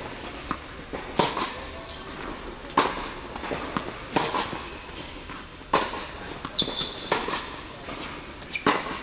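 Tennis balls struck by racquets in a groundstroke rally on an indoor hard court: sharp pops about every one and a half seconds, softer bounces between, each ringing briefly in the hall. A short high squeak of a shoe on the court about two-thirds of the way through.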